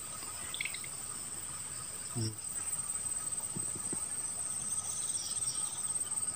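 Insects keeping up a steady, high-pitched drone, one continuous tone. A brief low sound comes about two seconds in.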